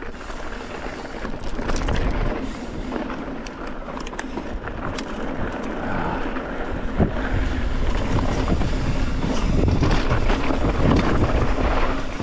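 Wind buffeting the microphone over a mountain bike rolling down a rocky trail, with scattered sharp knocks and clatter as the tyres hit rock. The noise grows louder through the second half.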